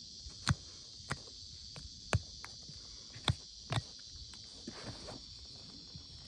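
Irregular sharp clicks and snaps of a farrier's tools working a horse's hind hoof during trimming, with a brief scrape about five seconds in, over a steady high hiss.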